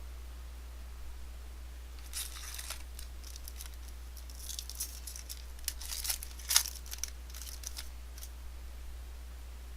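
Trading card pack wrapper being torn open and crinkled: irregular crackling tears over several seconds, the sharpest about six and a half seconds in.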